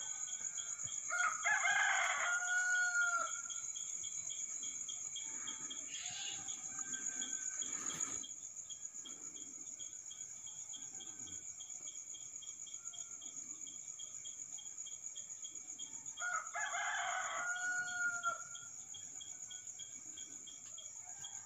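A rooster crowing twice, about fifteen seconds apart, each crow about two seconds long and ending on a held note, over a steady chorus of crickets trilling. A single sharp click comes about eight seconds in.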